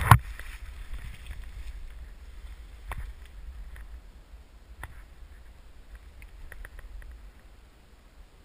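Dry leaves and brush rustling and crackling close to a GoPro's microphone as someone moves through undergrowth, loudest in a short crackling burst right at the start. A few scattered sharp clicks follow, over a low steady rumble.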